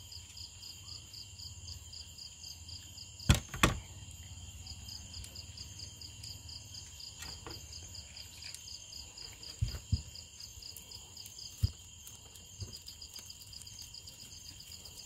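Kitchen knife cutting through pieces of sweet-corn cob onto a plastic cutting board: a few sharp knocks, two loud ones about three seconds in and a few softer ones later. Steady insect chirping runs underneath.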